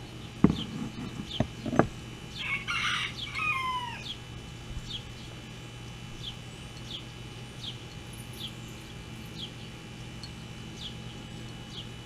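A rooster crows once, about two and a half seconds in, its call ending in a falling glide. Before it come three sharp knocks. A short high chirp repeats about twice a second throughout.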